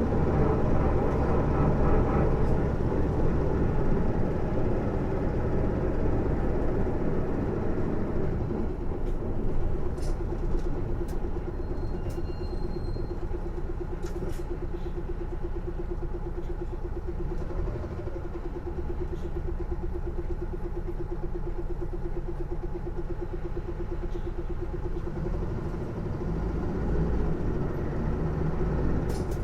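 Interior running sound of an Isuzu PJ-LV234L1 city bus. Heavy low engine rumble for the first several seconds, then a steady, slightly wavering whine while the bus runs on, louder than the engine. The uploader takes this unfamiliar noise to come from the drivetrain.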